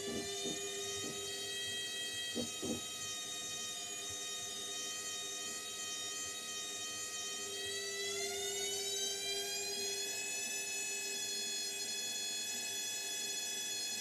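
Indesit front-loading washing machine running: a steady electric motor whine with a few short knocks in the first three seconds. About eight seconds in the whine rises in pitch as the motor speeds up, then holds at the higher pitch.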